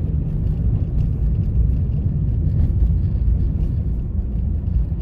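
Steady low rumble of a car being driven in town, heard from inside the cabin: engine and road noise.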